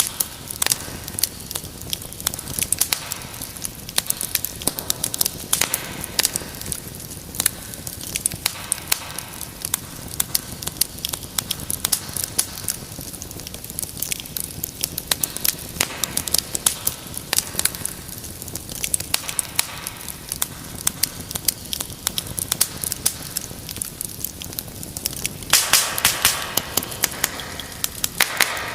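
Fire in a fireplace crackling: frequent sharp pops and snaps over a low steady hiss, with a louder, denser spell of crackling about three seconds before the end.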